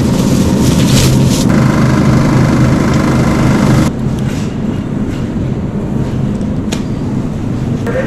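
Steady low rumble and rattle, like a shopping cart rolling across a store floor, which drops away sharply about four seconds in; a couple of light clicks follow.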